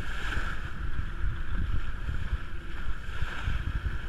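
Rush of water along a sailboat's hull as it sails through the waves, with wind buffeting the microphone in an irregular low rumble.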